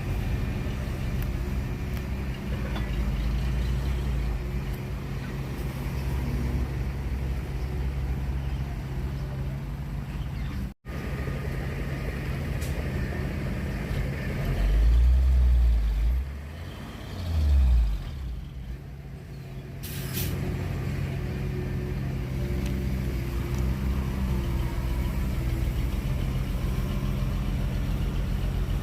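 Heavy diesel engines of earthmoving machinery running steadily, with two short loud surges of deep engine sound past the middle, then a brief hiss of air. The sound cuts out for an instant a little before the middle.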